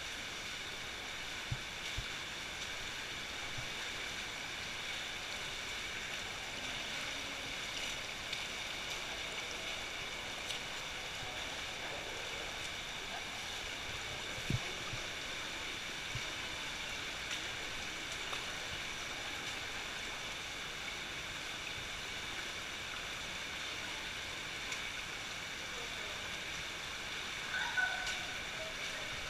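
Steady rush of a stream flowing over rocks inside a cave, with a few short knocks along the way.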